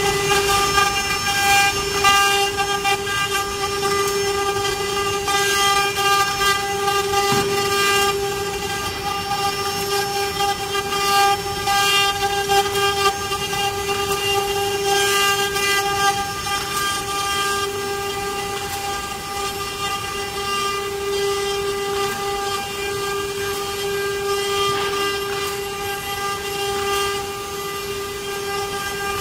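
Multi-spindle CNC wood carving router running, its spindle motors giving a steady whine while the bits carve relief designs into wooden panels, with irregular scratchy cutting noise over it.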